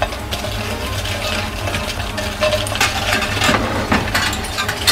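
Wooden chopsticks tossing crisp homemade potato chips in a stainless steel bowl: light clinks against the metal and crackly rustling of the chips, over a steady low hum.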